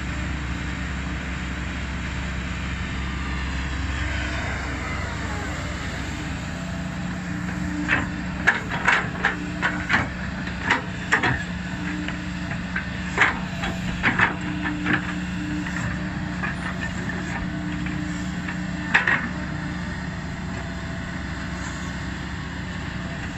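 Kobelco SK200 excavator's diesel engine running steadily under load, with a falling whine a few seconds in. Through the middle come a dozen or so sharp clanks and knocks from the digging and loading.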